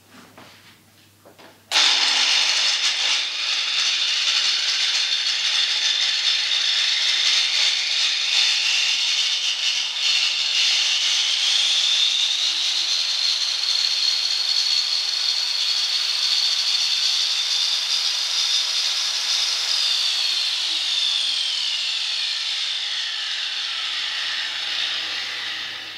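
Handheld corded electric power tool switched on about two seconds in and run free with no load, giving a steady high whine that climbs in pitch a little later. It is then switched off and winds down with a falling whine over the last several seconds.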